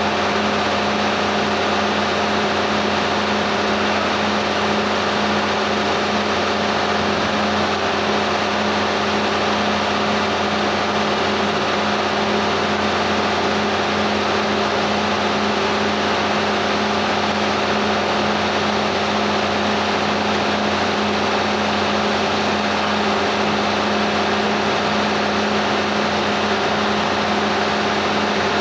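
An engine running steadily at a constant speed: a continuous even hum that neither rises nor falls.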